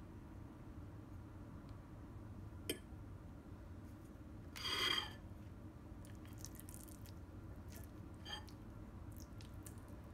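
Quiet room tone with a few light clicks and one brief, louder scrape about halfway through, from a metal fork working a raw cod fillet on a plate.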